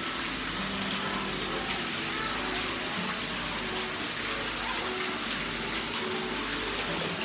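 Water running and splashing steadily into an open aquarium pool, a continuous rushing, with faint distant voices under it.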